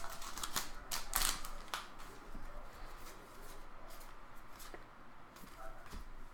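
Baseball trading cards being handled and flipped through by hand: quick card-on-card slides and flicks, busiest in the first two seconds, then sparser and fainter.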